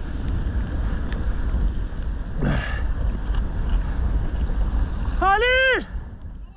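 Wind buffeting the microphone over surf breaking and water rushing along a sea kayak's hull in rough sea. About five seconds in, a paddler lets out a short, high whoop, and then the sound fades out.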